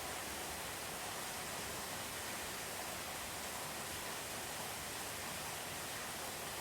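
Steady rain heard from indoors: an even, unbroken hiss with no thunder.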